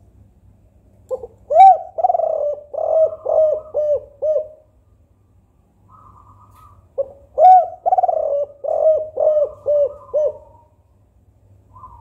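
Spotted dove (tekukur) cooing: two calling phrases a few seconds apart, each a stronger opening coo followed by a quick run of short, evenly spaced coos. It is the 'kuk 4' call type that dove keepers use as a lure.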